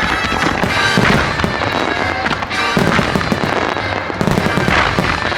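Music starmine fireworks barrage: rapid shell bursts and dense crackling, over music played through loudspeakers.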